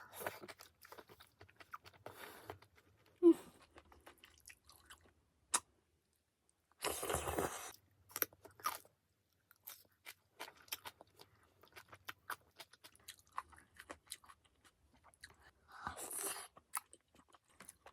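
Close-miked eating sounds: chewing, with many small clicks of utensils and a couple of brief louder rustling bursts.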